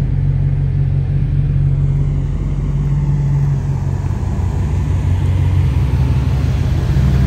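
Cammed LS4 5.3-litre V8 of a Chevrolet Impala SS idling with a steady, deep, choppy rumble.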